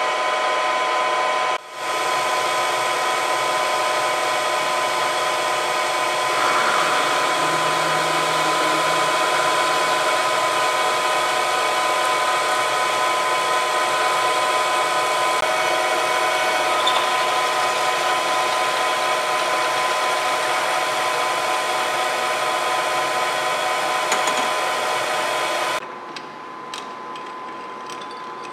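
Metal lathe running with a steady gear whine while a large twist drill in the tailstock bores into the spinning metal workpiece. The machine stops suddenly near the end, leaving a few light clicks as the drill is taken from the tailstock chuck.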